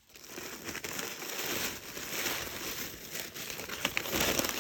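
Packaging wrap being handled and pulled open, crinkling and rustling continuously with small irregular crackles, growing louder near the end.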